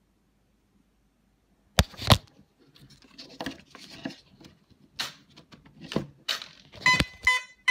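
Knocks and rustling of hands connecting a flight battery in an electric RC plane, then a few short, high electronic beeps near the end: the speed controller's power-up tones as the battery is connected.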